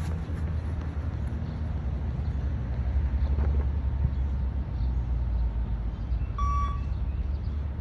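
One short electronic beep from a shuttle-run beep-test recording, about six and a half seconds in, marking the moment the runner must reach the line and turn. It sounds over a steady low rumble.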